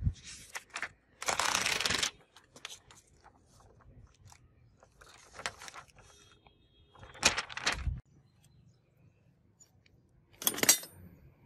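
Paper rustling and crinkling as a spiral notebook is handled. Near the end, a short clatter of rusty scrap metal with a brief metallic ring as a hand rummages through a pile of scrap.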